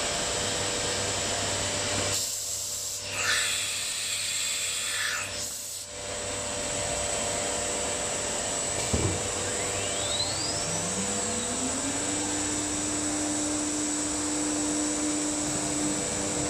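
Automatic nesting CNC router running with a steady machine hum. About nine seconds in there is a sharp click, then the spindle spins up with a rising whine that levels off into a steady tone.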